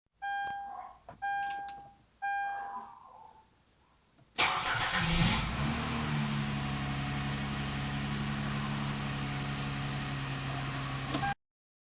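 Three electronic chime tones, then the 2008 Hyundai Azera's V6 engine starting from cold, with a louder flare just after it catches, and running steadily at a raised cold idle. This is the brief start-up noise the owner puts down to the tensioner, heard before the CVVT system fills with oil, and not harmful to the engine.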